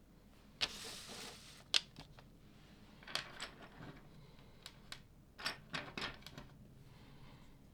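Plastic LEGO pieces being handled and snapped together: a short scraping shuffle near the start, then a string of sharp clicks.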